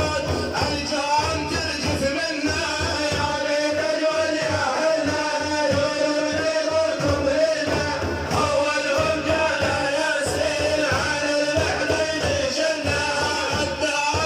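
A man singing an Arabic religious praise chant for the Prophet Muhammad, in a melodic, ornamented line over a steady low drum beat.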